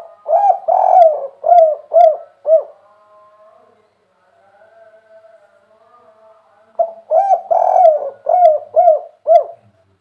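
Spotted dove cooing: two phrases of about six rounded coos each. The first comes at the start and the second about seven seconds in, with a pause between them.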